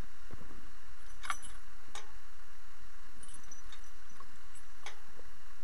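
Metal horse-cart and harness gear clinking: a few sharp clicks, with three louder ones about a second, two seconds and five seconds in, over a steady low rumble.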